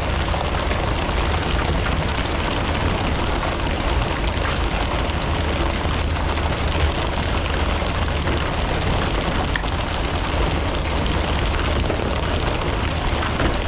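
Fishing boat's engine running steadily under a constant hiss of rushing noise, with no distinct events.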